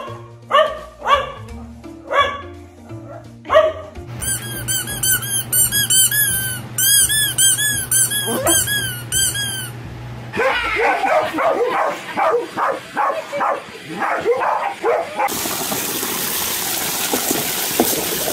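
Dogs barking over background music, broken by a run of short high squeaks in the middle. Near the end, water from a garden hose rushes steadily into a plastic paddling pool.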